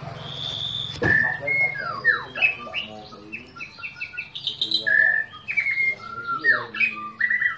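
White-rumped shama singing a fast, varied song of clear whistled notes and quick rising and falling phrases, starting abruptly after a click about a second in.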